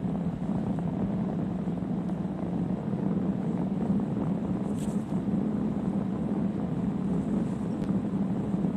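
Crisp, crunchy snow creaking steadily as it is ridden over, with a continuous grinding squeak and no break.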